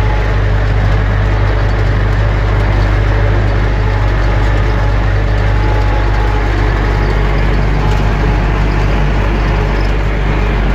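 UTB Universal 650 tractor's four-cylinder diesel engine running steadily, heard loud from inside the cab.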